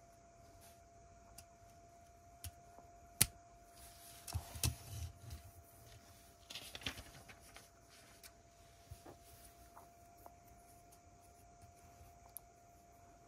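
Lego pieces being handled and pressed together: scattered sharp plastic clicks, with two short spells of pieces clattering and rustling about four and seven seconds in.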